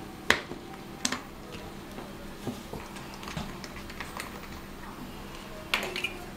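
Scattered light clicks and knocks of a plastic fuel bottle and grill parts being handled and set down, sharpest about a quarter second in and in a quick cluster near the end, over a faint steady hum.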